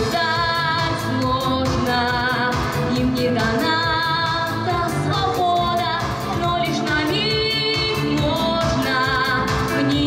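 A girl singing a pop song into a handheld microphone over instrumental accompaniment, holding several long notes with vibrato.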